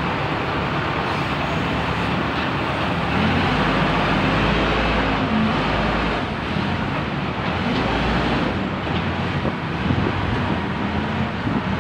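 Backhoe loader's diesel engine running steadily as the machine drives through soft, deep mud.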